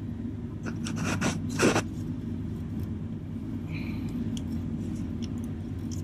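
Light metallic clicks and scrapes of a loosened starter mounting bolt and socket being worked out by hand among engine-bay parts, loudest about a second and a half in, over a steady low hum.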